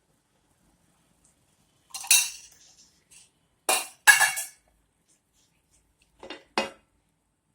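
Metal kitchen utensils and cookware clinking and knocking together: about five short clinks spread unevenly over several seconds.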